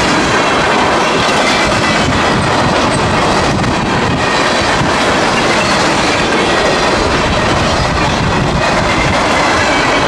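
Freight train cars rolling past close by at speed: a loud, steady rumble and rush of steel wheels on rail, with occasional wheel clacks.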